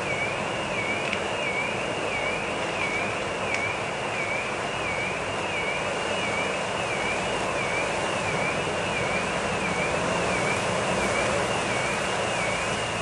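SUV driving through floodwater on a flooded street: a steady wash of water and traffic noise. Over it an electronic alarm siren warbles down and up about once a second.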